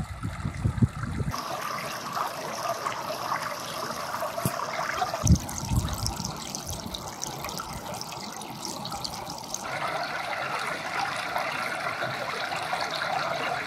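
Water trickling and running over waterlogged ground, with a single thump about five seconds in.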